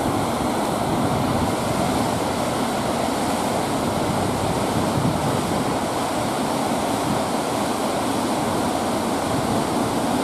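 Whitewater rapid of a river rushing steadily, an even unbroken wash of water noise.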